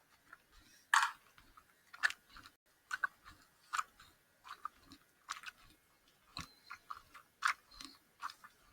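A person chewing gummy candy close to the microphone: irregular wet mouth clicks and smacks, the loudest about a second in.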